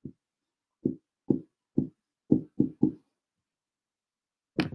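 Dry-erase marker writing letters on a whiteboard: a series of about seven short, uneven knocks as the strokes hit the board, then a pause of about a second and a half.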